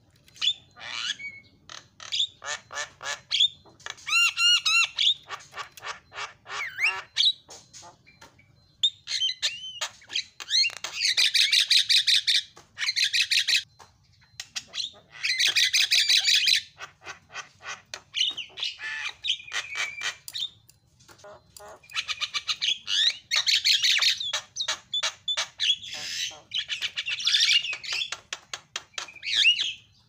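A Javan myna singing a long, varied song. It mixes rapid clicking notes, a few clear whistled notes and several loud harsh chattering passages of a second or two each.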